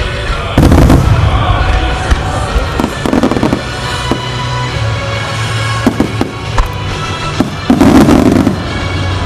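Starmine fireworks bursting in a rapid sequence, with the loudest bursts about half a second in and again near the end and smaller pops between, over music playing from loudspeakers.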